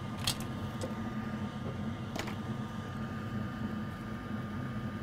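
Steady low machine hum with a faint high whine, broken twice by a faint click, once just after the start and again about two seconds in.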